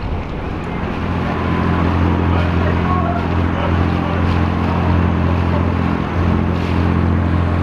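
Passenger ferry's engine running with a steady low drone, heard from on deck. It swells about a second in and then holds steady over a wash of water and wind noise.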